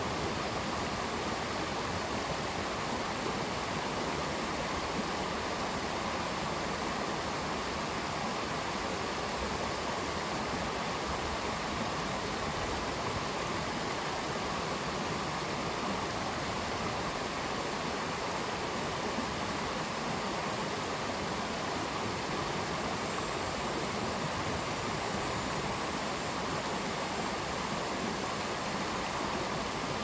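Shallow rocky stream running over stones and small rapids: a steady, even rush of water.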